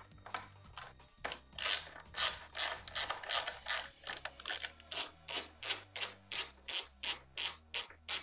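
A 10 mm socket ratchet being swung back and forth to undo a bolt, its pawl rasping on each stroke in a steady run that quickens after about five seconds. Faint background music plays underneath.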